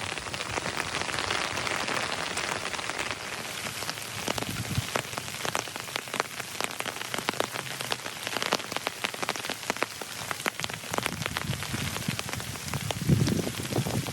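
Steady rain falling, with many separate drops ticking sharply close by. A louder, lower rustle comes near the end.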